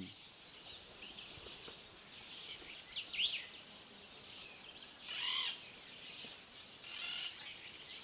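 Several wild birds calling over a low background hum of the outdoors: a stream of high whistles and chirps, with a loud sweeping whistle about three seconds in, a louder harsh call about five seconds in, and a quick run of falling whistles near the end.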